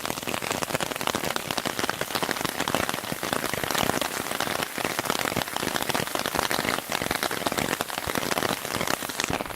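Steady rain falling, a dense patter of drops close to the microphone.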